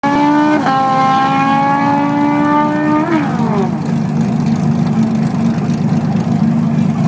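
A drag-racing car's engine at high revs, accelerating hard, with a gear change about half a second in; about three seconds in the pitch falls away as it backs off. A low idling engine rumble runs underneath.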